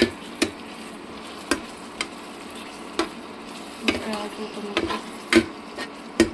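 Metal ladle stirring onions and tomatoes frying in oil in a metal pan: a steady sizzle under about nine sharp knocks and scrapes of the ladle against the pan at irregular intervals.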